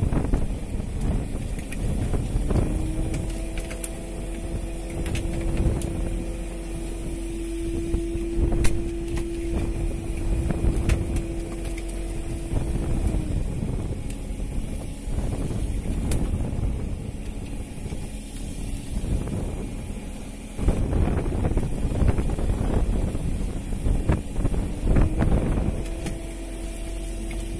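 Fishing boat's engine running, with wind and sea noise, under a steady mechanical whine from the deck line hauler. The whine starts a couple of seconds in, stops about halfway through, and comes back near the end. A few sharp knocks are scattered through.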